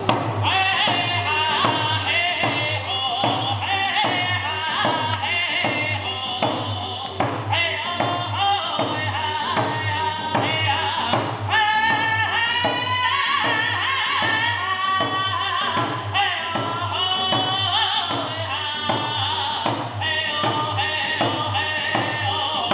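Native American hand-drum song: a voice singing over a steady beat on a round frame hand drum, about two strokes a second.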